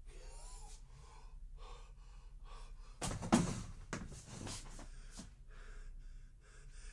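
A man gasping with a hand over his mouth, followed by several breaths. About three seconds in comes a loud thump with a few knocks against a desk.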